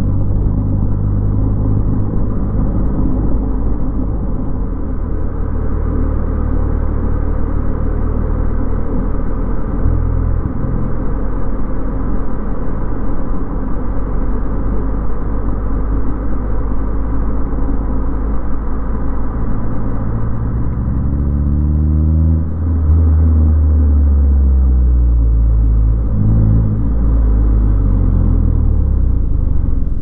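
Car engine and road noise heard from inside the cabin while driving, a steady low rumble. About two-thirds of the way through the engine note rises as the car accelerates, and rises again a few seconds later.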